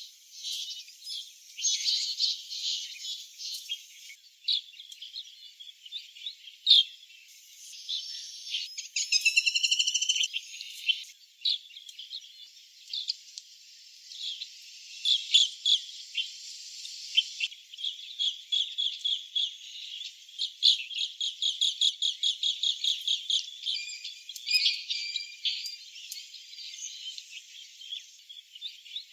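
Asian green bee-eaters calling: high chirps and trills, one after another. There is a fast rippling trill about nine seconds in, and long rapid runs of repeated notes in the second half.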